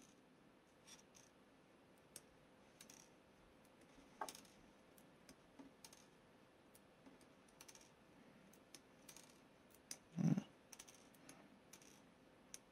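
Faint, scattered small clicks and ticks of little plastic model-kit parts being handled and clipped from their frames, with one louder, short low thump about ten seconds in.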